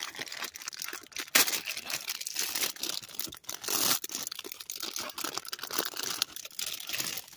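Thin clear plastic bag crinkling and crackling as it is pulled open and plastic toy track pieces are slid out of it, with the sharpest crackles about a second in and near the middle.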